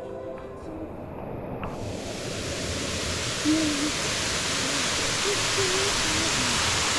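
Empress Falls waterfall: a steady rush of falling water that swells in about two seconds in, after a faint tail of background music.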